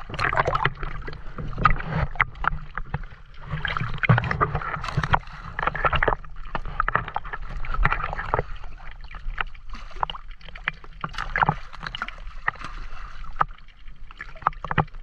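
Sea water sloshing and splashing against a waterproof action camera held at the waterline by a swimmer, with gurgling as it dips in and out of the water.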